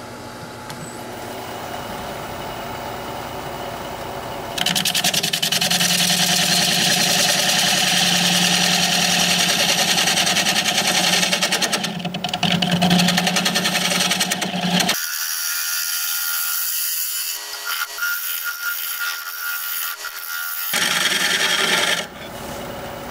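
Wood lathe running with a turning tool shear-scraping the inside of a hard live oak bowl. The cutting edge's scraping on the spinning wood starts about four seconds in, over the lathe's steady motor hum, and stops just before the end.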